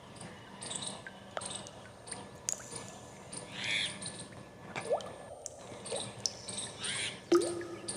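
Birds calling: several separate short chirps and calls, some quick rising notes, over a faint background hiss.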